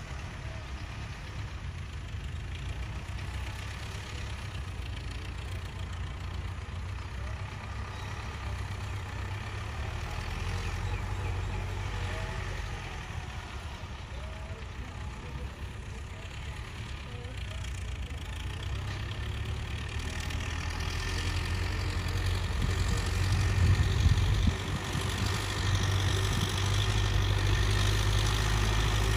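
Farm tractor engine running steadily as it pulls a disc plough, its low hum growing louder over the last several seconds.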